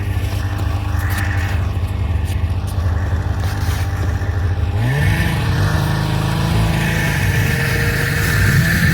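Snowmobile engine running steadily under tow, then revving up about five seconds in and holding a higher pitch with slight dips and rises.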